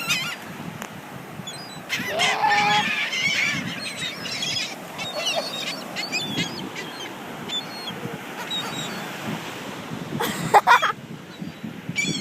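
A flock of gulls calling over and over with harsh, honking squawks, loudest in a cluster of calls about two seconds in, with a brief loud burst near the end.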